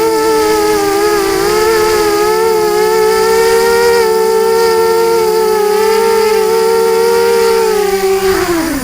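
FPV quadcopter's brushless motors and propellers whining steadily, several close pitches wavering slightly with throttle. Near the end the pitch falls sharply as the motors spool down.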